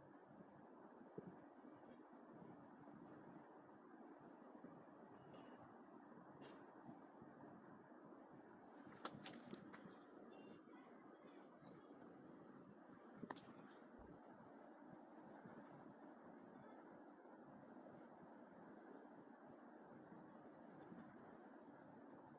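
Near silence: a faint, steady high-pitched buzz, with a few faint clicks of hand tools on the motorcycle's clutch parts, about a second in and again around nine and thirteen seconds in.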